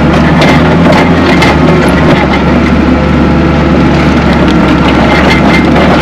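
Tracked skid steer's engine running steadily under load as it drives forward grading dirt, heard from inside the open, doorless cab, with light clicks and rattles from the machine throughout.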